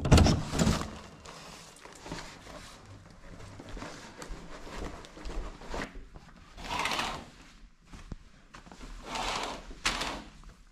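Indoor handling noises: a knock and rustle at the start, then scattered light clicks and two longer rustling swells, about six and nine seconds in.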